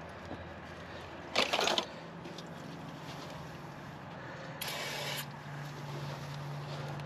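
Two short hissing bursts of aerosol spray cleaner onto a new brake rotor, washing off its shipping oil: one about a second and a half in and a thinner one about five seconds in. A low steady hum runs underneath.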